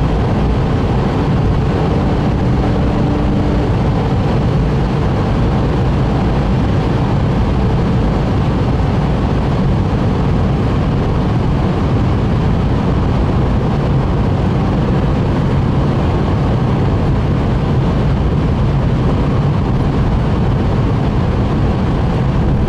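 Cabin noise of a Porsche 911 GTS cruising at autobahn speed: a steady flat-six engine drone blended with tyre and wind noise, holding level with no gear changes or revving.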